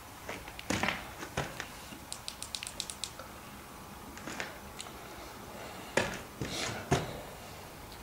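Handling noise: scattered clicks and knocks, with a quick run of about eight light ticks about two seconds in and two sharper knocks near the end.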